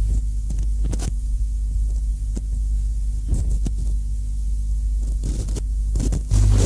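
Industrial noise recording: a heavy, steady low drone with scattered crackles and clicks over it. Near the end the drone abruptly gets louder and fuller.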